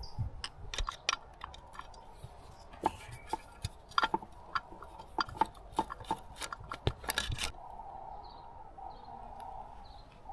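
Irregular light clicks and taps of small hand tools and metal parts while loosening the throttle cable on a Yamaha 3.5 outboard's carburetor. The clicks die away about seven seconds in.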